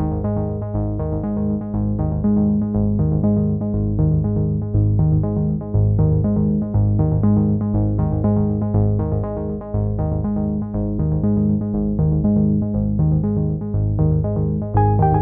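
Background music: synthesizer and keyboard playing steady sustained notes over an even rhythmic pulse.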